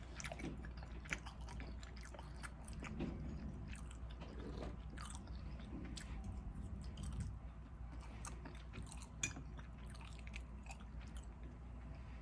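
Close-miked mouth sounds of a person chewing food, with many small smacks and crisp clicks that come irregularly throughout.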